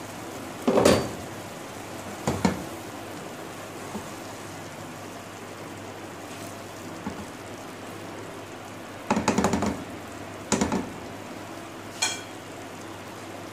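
Slotted plastic spatula scraping and knocking against a steel pot as rice is turned, a handful of short strokes with a long pause in the middle. A steady hiss from the pot cooking on the gas flame runs underneath.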